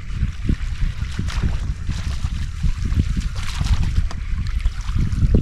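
Wind buffeting the microphone, a steady low rumble, with scattered faint clicks and water noise.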